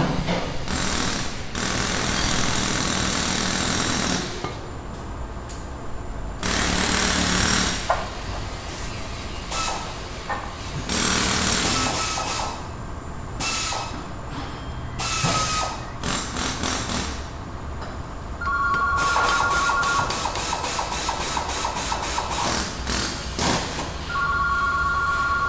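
Auto repair shop ambience: power tools run in repeated bursts of a second or two each. From about two-thirds of the way through, a tool rattles with rapid, even hammering over a steady whine.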